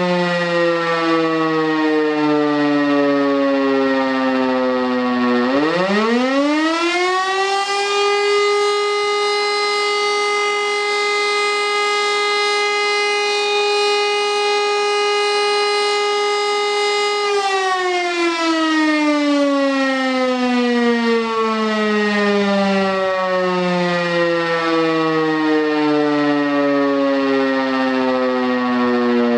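Civil defence siren sounding the German fire alarm signal on a test. It winds down, then quickly winds back up about five seconds in and holds a steady howl for about nine seconds. From there its pitch falls slowly as it winds down again, the break between two blasts of the interrupted signal.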